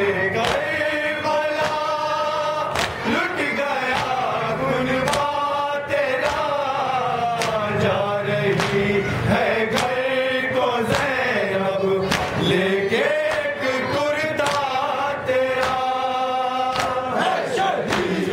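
Men's voices chanting a Shia nauha (Urdu mourning lament) in unison, a lead reciter with a group joining in on a slow, wavering melody. Sharp slaps, from chest-beating (matam), cut through at intervals.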